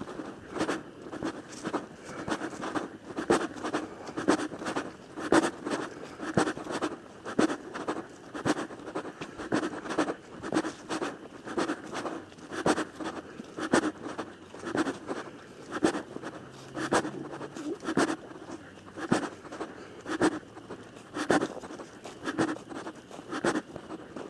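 Footsteps of a hiker walking on a dirt and leaf-litter trail, a crunching step a little over once a second.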